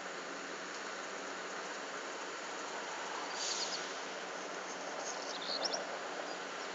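Outdoor ambience: a steady hiss, with a cluster of short high chirps about halfway through and another near the end.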